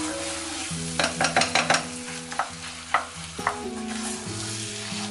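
Wooden spatula stirring and scraping mashed potatoes against the sides of an aluminium pot, with a quick run of scrapes about a second in and a few more knocks later. Butter and oil sizzle steadily in the pot underneath.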